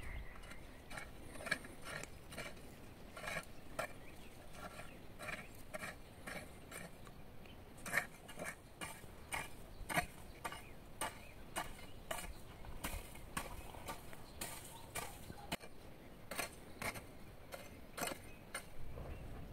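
Garden hoe chopping and scraping into soil between plant rows: irregular light strikes, about one or two a second.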